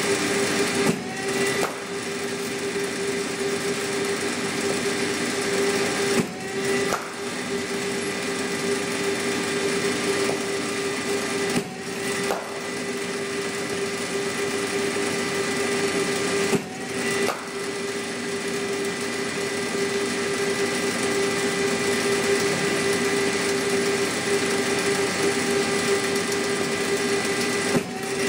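Cricket bowling machine running with a steady motor hum. About every five seconds, and again near the end, it dips briefly and there is a short knock as a ball is fired and batted.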